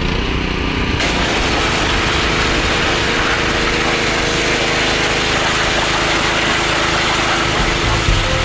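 A 3,300 PSI, 2.4 gallon-per-minute gas pressure washer's small engine runs steadily. About a second in the trigger is pulled and a loud, steady hiss of high-pressure water spray from the wand sets in as it blasts the seats.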